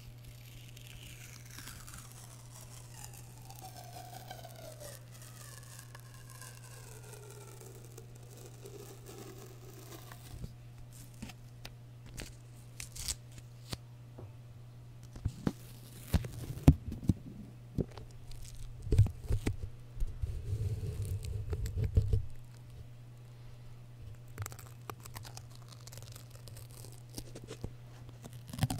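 Masking tape being peeled slowly off its roll close to a microphone, a squealing tear that falls in pitch over the first ten seconds. After that come sticky crackles, taps and rubbing as pieces of tape are pressed onto and pulled off the microphone, loudest between about 15 and 20 seconds in, over a steady low hum.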